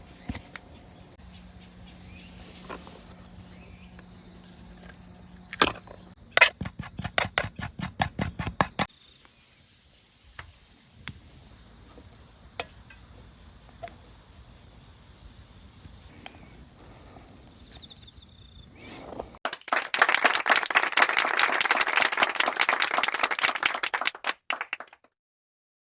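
Campfire cooking: scattered crackles, a quick run of sharp clicks about six seconds in, then a loud, dense sizzling crackle for the last five seconds or so that cuts off suddenly.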